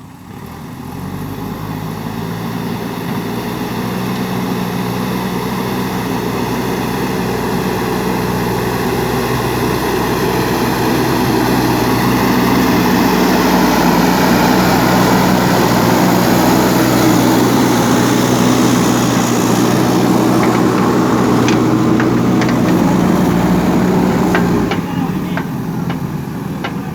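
JCB backhoe loader's diesel engine running steadily under load, growing louder over the first dozen seconds and easing off near the end. A few sharp knocks come late on.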